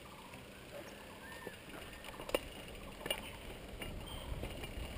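Mountain bike rolling downhill on asphalt, its tyre and wind rumble building toward the end, with scattered clicks and rattles from the bike.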